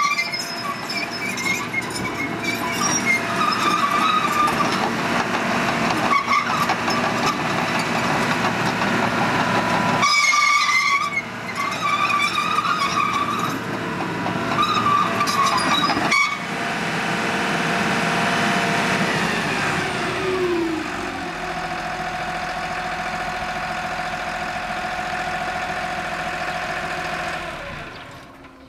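Caterpillar D4G crawler dozer's diesel engine running under way, with recurring high squeals from the steel tracks. About two-thirds through, the engine winds down to a steady idle. Near the end the sound cuts off.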